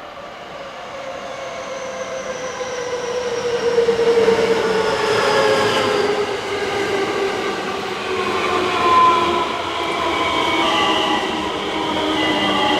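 Electric freight train coming in to stop, growing louder over the first few seconds, with the locomotive's traction motor whine falling slowly in pitch as it brakes.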